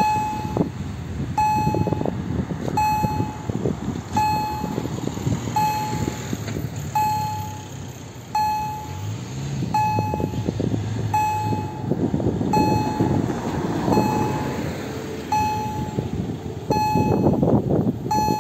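Railway level-crossing warning loudspeaker (EHL-S10, Kombud-modulated tone) sounding a short electronic bell ding about every one and a half seconds while the crossing closes. Steady low noise from wind and road traffic lies underneath.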